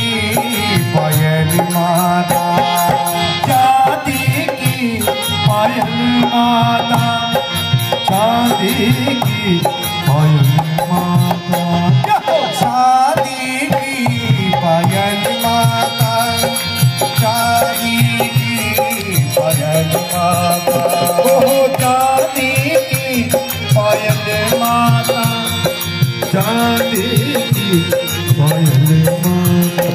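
Live bhajan music: a harmonium playing a melody over a steady dholak beat, amplified through a PA system.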